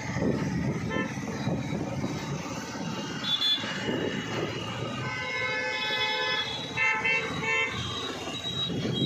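Road traffic rumbling, with several vehicle horns honking from about three seconds in, overlapping and held in the second half.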